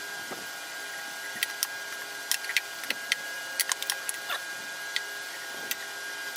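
Scattered light clicks and taps, with a few brief squeaks, of objects being handled on a workbench, most of them between about one and four seconds in. A steady faint high-pitched hum runs underneath.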